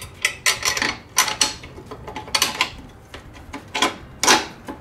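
Irregular sharp metal clicks and clinks, several a second, from a socket tool working a bolt and nut on the chrome sissy-bar mount of a motorcycle's rear fender.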